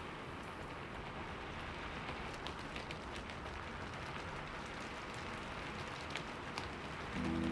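Wood fire crackling: a steady soft hiss with scattered sharp pops and snaps. A sustained low music note comes in right at the end.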